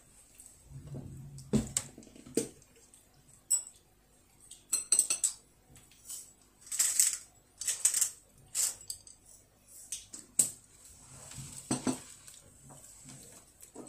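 Chopsticks clicking and scraping against a rice bowl as a child picks up rice, in a string of short, irregular clinks.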